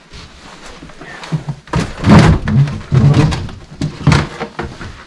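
Chest freezer lid opened, then a run of thunks, knocks and clatter as things are handled inside it, with a sharp knock about four seconds in.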